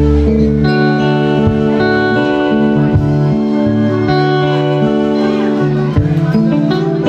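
Live band music: an instrumental passage of sustained melody notes over a bass line, with the singers not yet singing.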